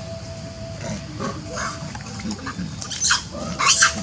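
Long-tailed macaques calling, with two loud, shrill screeches close together near the end and a few softer calls before them.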